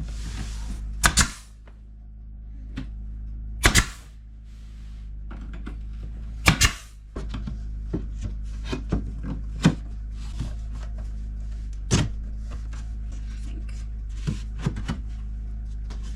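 Boards being nailed up: sharp wooden knocks at irregular intervals, several coming in quick pairs, over a steady low hum.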